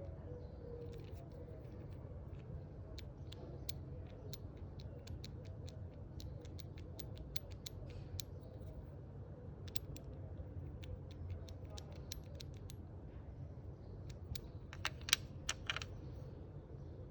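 Opel Vectra C engine running steadily at idle, with irregular sharp clicks over it and a louder quick cluster of clicks near the end. The engine has an ignition misfire on cylinder 3.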